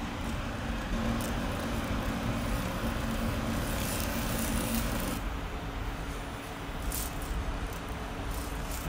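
Khmer pancake frying in a nonstick pan: a steady sizzle with a low hum under it, which stops about five seconds in. A sharp click or scrape follows near seven seconds as the wooden spatula slides the pancake from the pan onto a plate.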